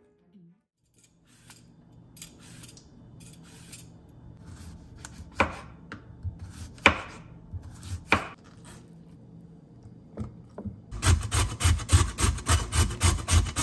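A chef's knife cuts a cucumber on a bamboo cutting board, with three sharp chops a second or so apart. About eleven seconds in, a carrot is rubbed quickly on a metal box grater standing on the wooden board, about four scraping strokes a second, each with a thump.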